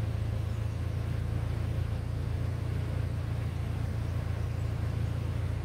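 A small engine running steadily, a continuous low hum.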